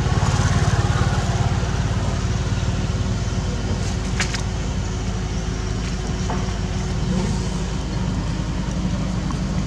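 Steady low rumble of motor traffic in the background, holding an even level with a faint steady hum.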